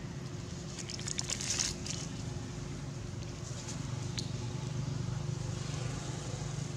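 Dry leaves crackling and rustling in a short flurry about a second in, over a steady low hum.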